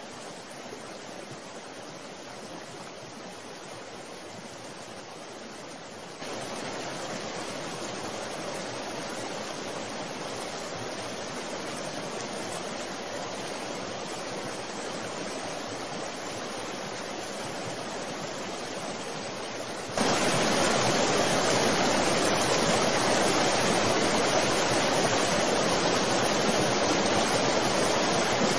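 Steady rushing outdoor noise beside a swollen, flooded river, an even wash with no distinct events. It jumps louder abruptly about six seconds in and again about twenty seconds in.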